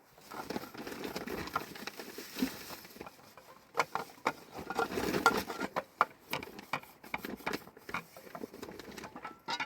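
Rustling with many light, irregular clicks and knocks, as of objects being handled, in two busier stretches near the start and in the middle.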